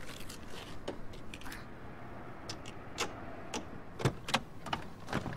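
A series of irregularly spaced clicks and knocks, the loudest a few seconds in, over a low steady background.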